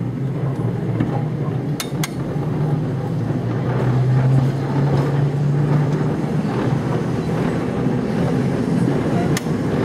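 Electric tram moving off and running along the track, heard from its open upper deck: a steady low hum over a rumbling noise, with a few sharp clicks.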